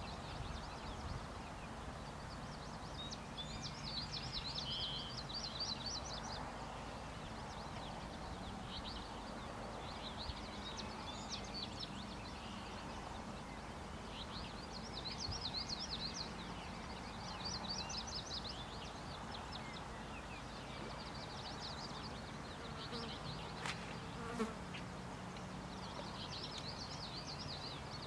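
Outdoor ambience: birds singing in short, high chirping phrases every few seconds over a steady low hum, with one faint click near the end.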